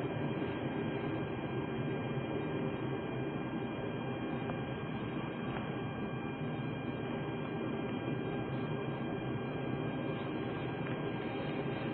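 Steady hiss and hum of a low-quality camera recording, with two faint steady high-pitched tones running through it and no distinct events.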